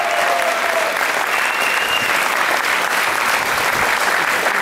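Concert audience applauding, a dense steady clapping. A held note fades out within the first second, and a brief high tone sounds about a second and a half in.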